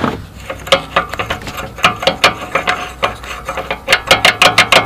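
Sears snow blower drive pulley clicking and rattling against a Predator engine's crankshaft as it is worked onto it by hand: a string of uneven metallic clicks that come quicker near the end. The pulley is bored 7/8 inch and sits loose on the 3/4-inch shaft.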